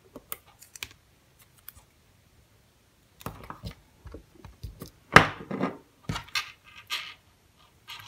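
Handling noise on a wooden desk: a scattered run of small clicks, taps and scrapes as a charging cable, its small parts and a pair of pliers are picked up and set down, with the loudest knock about five seconds in.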